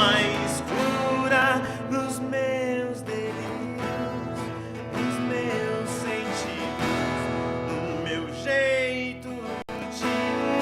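Folk music led by acoustic guitar, with a wavering melody line above the chords; the sound drops out for an instant near the end.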